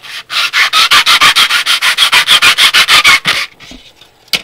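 Plastic model-kit wall part being sanded flat by hand, rubbed quickly back and forth on a sheet of sandpaper at about six strokes a second. The sanding stops about three and a half seconds in, and a sharp click follows near the end.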